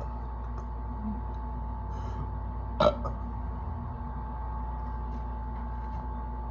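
A person's single short, sharp hiccup-like burp about three seconds in, after chugging carbonated soda.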